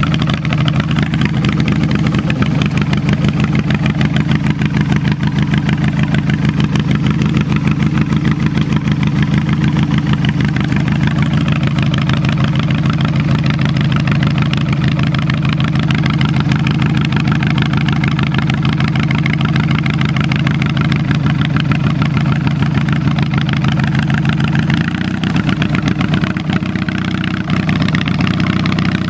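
1983 Yardman MTD garden tractor engine running steadily through upright chrome exhaust stacks as the tractor drives along, its firing pulses plainly heard. The engine note changes near the end.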